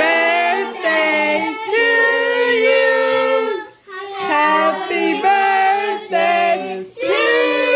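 Children singing a song, with long held notes broken by short pauses near the middle and near the end.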